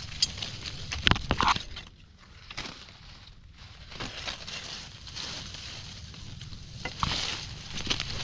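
Dry leaf litter and twigs crackling and rustling as someone moves through forest undergrowth, with the sharpest crackles about a second in and again near the end.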